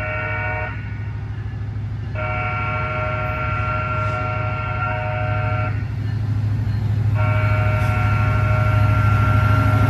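Diesel freight locomotive's air horn sounding a several-note chord at a road grade crossing: a blast ends just after the start, a long blast follows about a second later, and another begins about a second and a half after that. Under the horn, the low drone of the approaching locomotives' diesel engines grows steadily louder.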